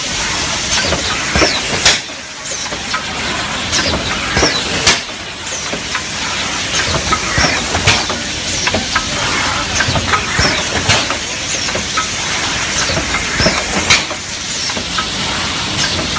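A 10-lane cup water filling machine running: a steady hissing, clattering mechanical noise full of small clicks, with a sharper clack about every three seconds as the machine cycles.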